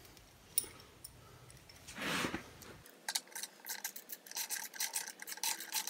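Small metal clicks and scrapes of a screw being started and turned into a scooter's CVT cover. The clicking comes quick and uneven from about halfway in.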